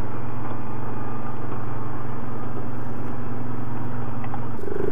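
ATV engine running at a steady, low pitch as the quad crawls slowly along a narrow trail. It is heard up close from the machine itself.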